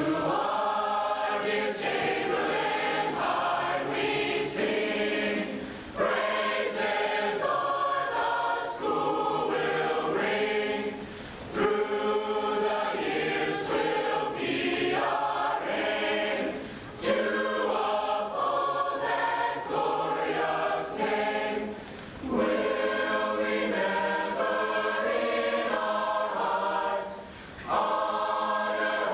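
Mixed choir of men's and women's voices singing, in phrases of about five seconds with brief breaths between them.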